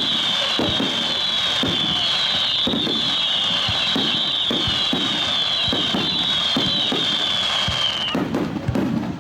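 Fireworks going off in a rapid run of low bangs, about two a second. Over them a high whine sweeps down in pitch again and again, then cuts off suddenly about a second before the end.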